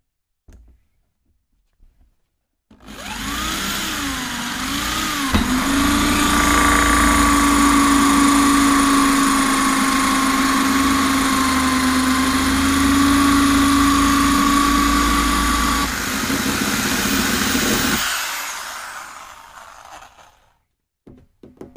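Corded electric drill with a hole saw cutting a hole through the top of a plastic water tank for a tank nipple fitting. The motor starts about three seconds in, its pitch wavering briefly as the saw bites, then runs steady. It stops and winds down near the end, followed by a few light knocks.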